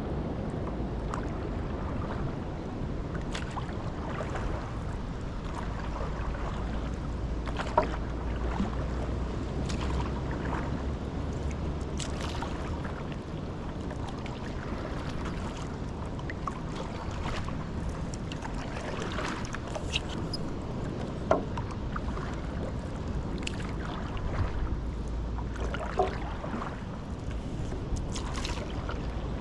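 Paddle strokes in calm river water from a stand-up paddleboard: the blade dipping and pulling with small splashes and drips. There are a few sharp clicks, one about eight seconds in and two more past the twenty-second mark, over a low steady rumble.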